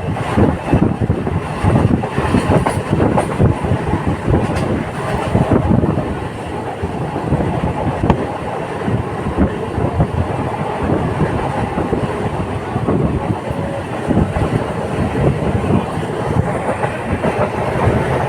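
Local passenger train running along the track: a steady rumble of wheels and carriages with irregular clattering knocks over the rail joints, busier in the first few seconds.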